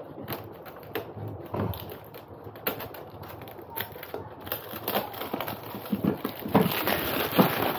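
A boxed three-piece stainless steel stock pot set being unpacked and handled: rustling packaging with irregular clicks and knocks.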